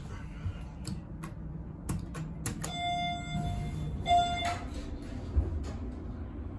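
Delta elevator car's electronic beep sounding twice, a longer tone and then a short one, after a few sharp clicks from the car's push buttons. A low rumble of the car running downward lies under it.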